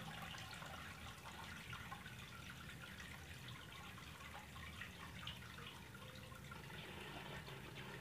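Faint trickle of water draining out of a Samsung single-tub washing machine, with a few small drips. The drain valve is being held open by hand because the machine has no power.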